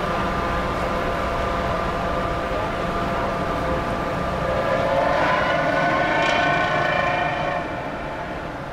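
Ship and tugboat engines running during a harbor maneuver: a steady drone with a whine of several pitches, which swells about five seconds in and drops off near the end.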